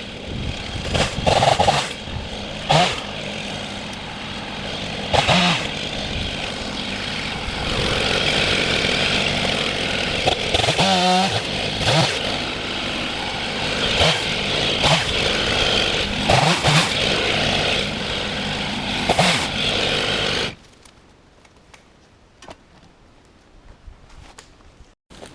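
A vehicle engine running steadily with repeated knocks and rattles, then shut off abruptly about twenty seconds in, leaving a faint quiet background.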